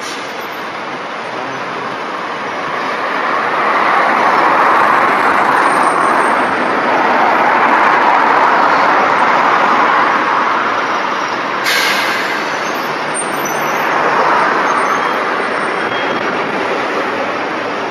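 Diesel buses running and pulling through a bus station, the engine and traffic noise growing louder a few seconds in and again near the end as buses move close. A short air-brake hiss comes about twelve seconds in.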